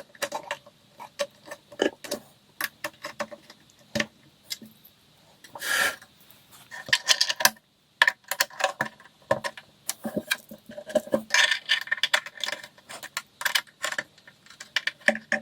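Irregular clicks, light knocks and small metallic rattles from handling flat-pack furniture parts and hardware during assembly, with busier stretches about halfway through and again later.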